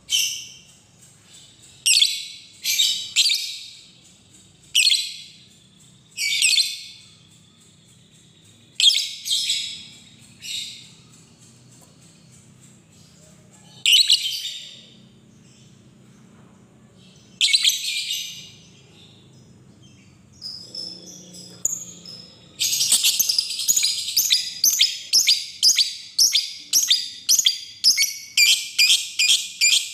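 Lovebird calling: loud, high-pitched chattering calls in short separate bursts every one to three seconds. About two-thirds of the way in it breaks into a long, fast run of chattering at about three bursts a second, the extended 'ngekek' chatter.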